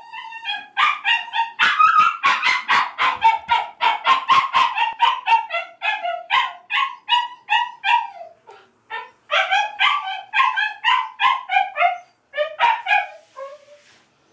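Shiba Inu screaming in protest at being bathed: a rapid string of high-pitched yelping cries, about four a second, many dropping in pitch at the end. It breaks off briefly twice and dies down near the end.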